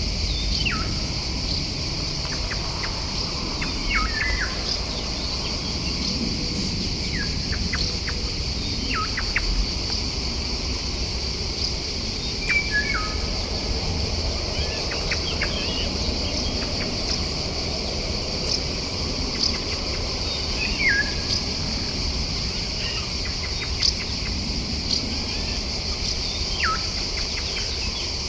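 Wild birds calling over a steady, high insect drone. Short whistled calls slide sharply downward in pitch and repeat every few seconds, with scattered quick chirps between them.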